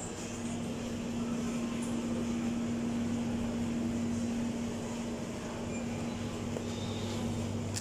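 Steady hum of supermarket chest freezers and refrigerated display cases running, with a low steady tone in it.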